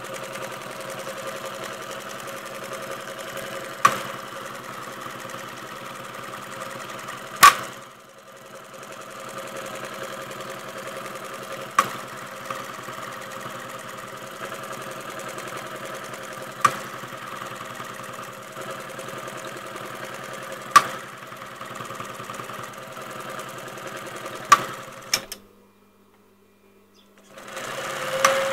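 Siruba T828-45-064M twin-needle industrial lockstitch sewing machine running steadily as it stitches fabric, with a sharp click every four seconds or so. It dips briefly about eight seconds in, stops a few seconds before the end, then runs again for a moment.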